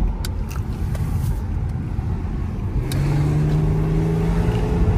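Infiniti G37 sedan's VQ-series V6 engine and road rumble while driving, heard from inside the cabin. About three seconds in, the engine note comes up and holds steady. A few light clicks fall in the first second and a half.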